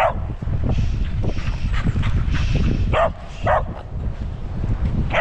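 Small dog barking a few short, sharp times, with two barks close together about three seconds in, over a steady low rumble.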